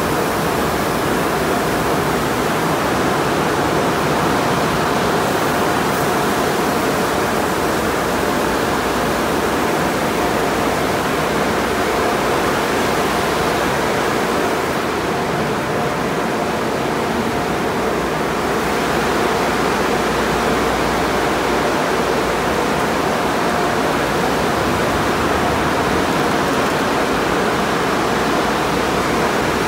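Conveyor car wash at work: water spray and spinning cloth wash brushes sweeping over a car, a steady rushing wash of noise with a faint steady machine hum underneath. The hiss eases a little for a few seconds past the middle.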